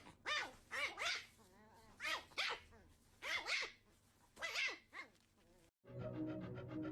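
A small pet's short, high calls, each rising then falling in pitch, about nine of them, mostly in pairs. Music starts abruptly near the end.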